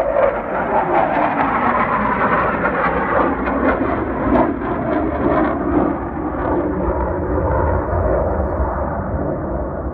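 Loud jet noise of Blue Angels F/A-18 Hornets flying past: it comes in suddenly at full strength, falls in pitch over the first couple of seconds, and settles into a deep rumble as the jets fly away.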